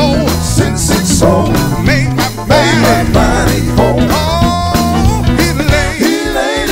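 Live band playing a gospel song: drum kit, electric guitars and keyboard under a male lead vocal that sings wavering, ornamented lines and holds one long note in the middle. Near the end the bass and drums drop out, leaving the voice and upper instruments.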